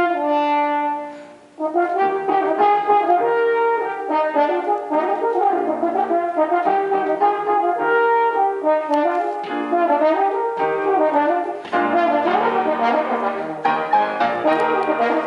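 French horn playing with grand piano accompaniment: a held horn note ends about a second in, and after a short break horn and piano go on together through a lively passage of changing notes.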